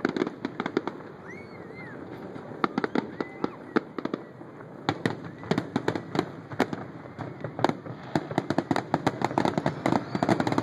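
Fireworks going off: a rapid string of bangs and crackles from bursting shells, a few whistling rises among them. The bangs come thicker and faster in the second half.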